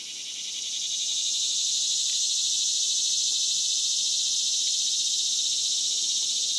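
A loud, steady chorus of buzzing insects, high-pitched with a fine pulsing texture, swelling up over the first couple of seconds and then holding.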